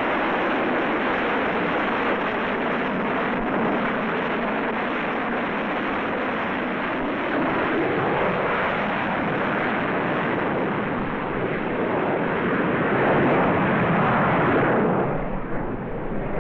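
Hawker Siddeley Harrier's Rolls-Royce Pegasus vectored-thrust turbofan, a loud, steady jet noise as the aircraft hovers on its nozzles. It swells a little near the end, then drops away.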